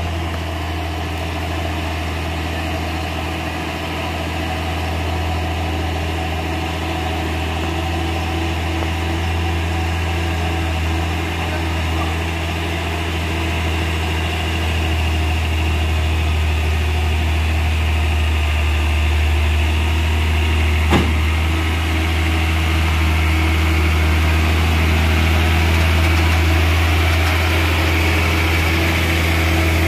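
Hino truck's diesel engine pulling hard in low gear up a steep hairpin, a steady low drone that grows louder as the truck comes close. A single sharp click sounds about two-thirds of the way through.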